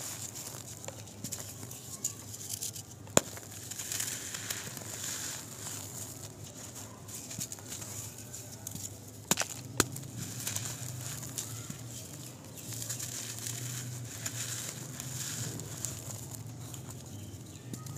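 Dry dirt clods crumbling and crunching in bare hands, with loose soil pouring and pattering back onto the pile. A few sharp cracks come as clumps snap, one about three seconds in and two close together just before halfway.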